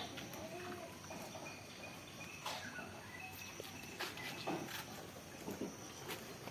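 Quiet goat-farm ambience with scattered light clicks and knocks, a faint short animal call about half a second in, and a thin steady high insect-like tone.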